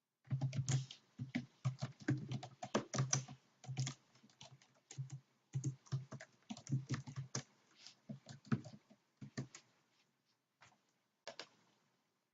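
Typing on a computer keyboard, rapid and irregular keystrokes that thin out to a few isolated presses near the end.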